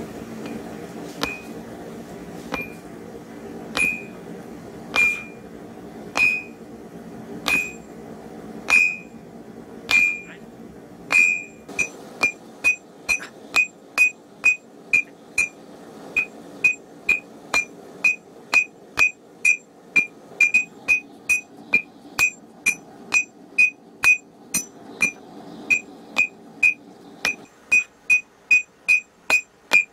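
Hand hammer striking a red-hot piece of iron gear on an anvil, each blow ringing at a clear high pitch. The blows come slowly, about one every second and a quarter, then speed up to about two a second from roughly eleven seconds in as the hot iron is drawn out into a bar.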